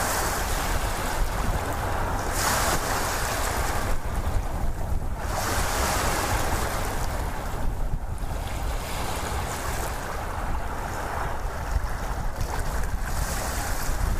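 Waves washing onto a shore: a steady low rumble with a hissing surge that swells and fades every few seconds.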